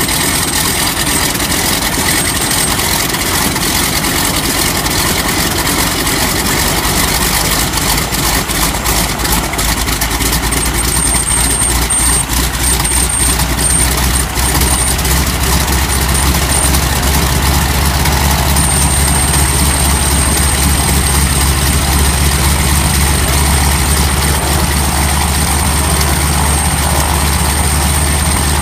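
Pratt & Whitney R-985 nine-cylinder radial engine idling on its ground test run after a cylinder change, a few seconds after start-up. The idle grows fuller and steadier about halfway through.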